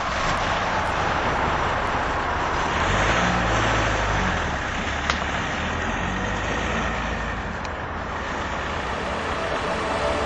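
A car engine running with a steady rushing noise. Its low rumble swells around three seconds in, and there is a single sharp click about five seconds in.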